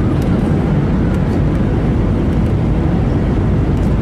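Steady low rumble of an Airbus A320 airliner's engines and airflow, holding an even level.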